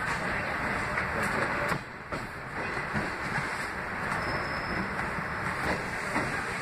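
Passenger train running along the track, heard from inside the carriage: a steady rumbling noise with a few sharp clicks of the wheels over the rails. The noise drops briefly about two seconds in.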